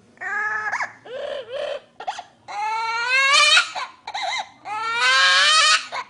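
Baby-like crying wails, several in a row, the two longest each rising in pitch.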